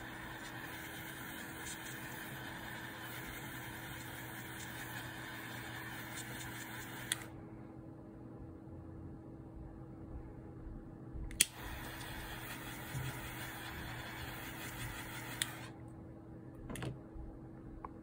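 Butane jet lighter burning with a steady hiss as it heats and shrinks a solder-seal heat-shrink splice connector. The flame cuts off about seven seconds in, is re-lit with a sharp click about four seconds later, and hisses again for about four seconds before going out.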